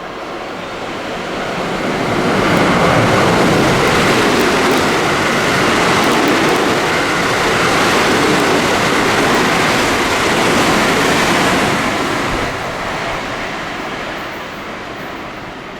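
A train passing through a station at speed without stopping: a loud rush of wheel and air noise that builds over the first two or three seconds, holds steady for about ten seconds, then fades away. No horn is sounded.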